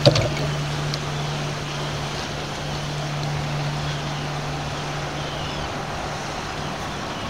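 A motorboat's engine droning steadily as the boat runs in through the inlet, over wind and the rush of the choppy water. A short knock sounds right at the start.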